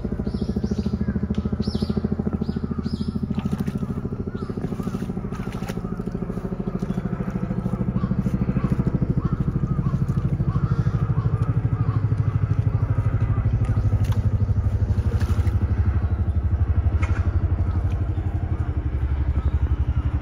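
A steady low mechanical rumble like an engine running, growing louder about a third of the way in, with a few short splashy sounds in the first few seconds.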